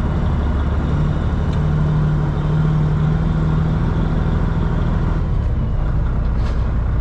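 Semi-truck's diesel engine running steadily at low speed, a continuous low drone.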